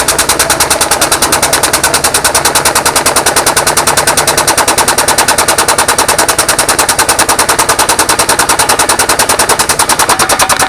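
Air-over-hydraulic press's air-driven pump chattering in a loud, rapid, even pulse, many beats a second, as it drives the ram down through the aluminium pulley.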